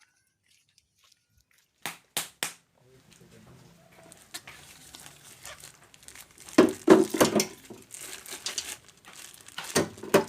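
Three sharp clicks in quick succession, then crinkling, rustling handling noise that comes in louder bursts in the second half.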